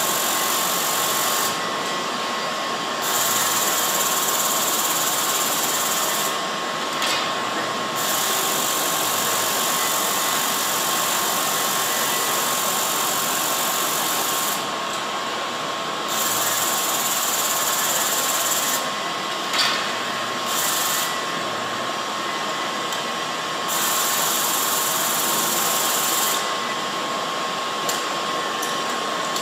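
Automatic quilt binding machine running its sewing head: a steady mechanical drone with a constant high whine. A high hiss switches on and off every few seconds, and there are two sharp clicks, one about seven seconds in and one about twenty seconds in.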